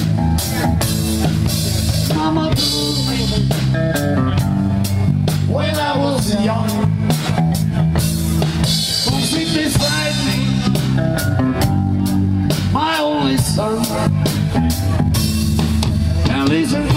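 Rock band playing live: a drum kit keeping a steady beat under electric guitars and bass guitar.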